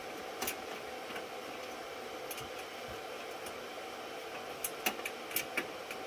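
Steady fan hum from a running server rack, with a few light clicks scattered through, more of them near the end, as a screw is turned by hand into a rack rail. The screw keeps catching in the rail's threads and slipping out.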